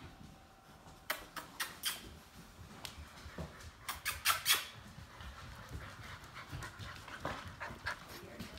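Newfoundland puppies playing, with short, sharp, high squeaks in two quick clusters, one about a second in and a louder one about four seconds in.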